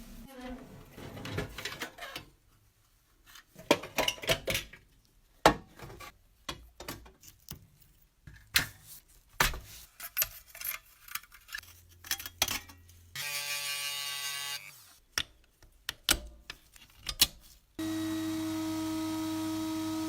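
Irregular clicks, knocks and light metallic rattles of a small metal toy truck being handled and worked on with hand tools. About thirteen seconds in comes a buzz lasting about a second and a half, and near the end a steady humming tone begins.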